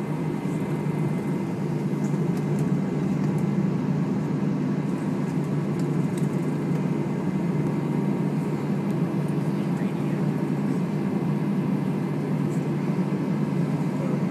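Steady cabin noise inside an Airbus A320 on the ground after landing: a low, even hum from the engines at idle and the air-conditioning, with faint steady tones above it.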